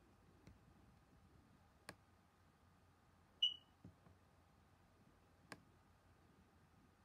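Quiet room with a few sharp, single laptop pointer clicks spread a second or two apart. One short high beep about three and a half seconds in is the loudest sound.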